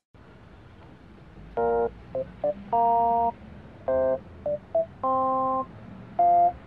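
A short tune of electronic beeps with a dull, narrow sound: a short note, two quick blips and a longer held note, played twice and starting over near the end.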